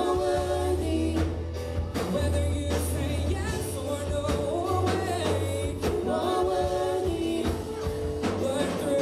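Live church worship band playing: several singers on microphones over electric bass guitar, keyboard and a drum kit, with regular drum hits and a sustained bass line.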